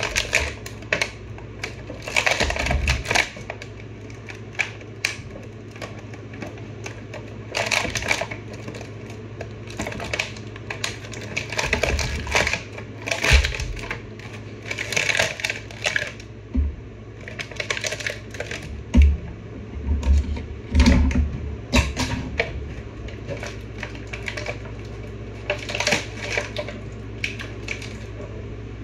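Action-figure packaging being opened and handled: irregular crinkling and clicking of the box and its insert, with a few dull bumps.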